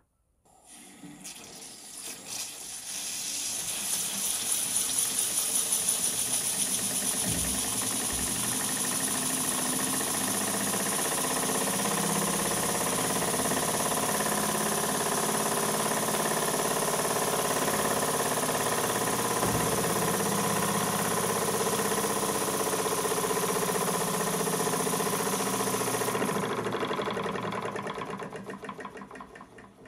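Lathe-built model steam engine running under steam, with a steady hiss and mechanical running noise as it drives a small motor used as a generator. It builds up over the first few seconds and dies away near the end. It turns too slowly for power generation, with the generator giving only about 0.3 V.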